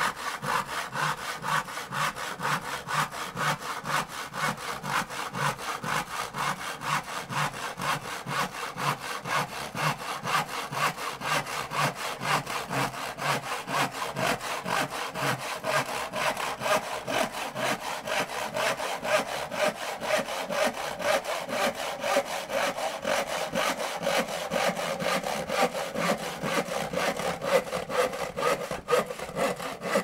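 Hand saw cutting wood in steady, rhythmic back-and-forth strokes, each stroke a rasping scrape of the teeth through the grain.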